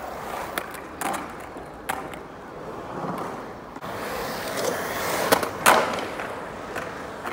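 Skateboard wheels rolling on concrete, with scattered sharp clacks of the board against the concrete and two louder clacks in quick succession about five and a half seconds in.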